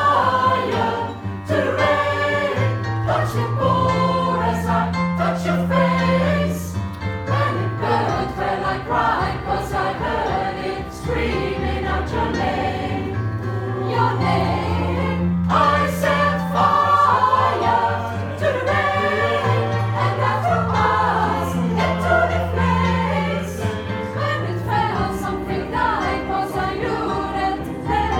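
Vocal group singing in harmony, with long-held low bass notes under the higher voices.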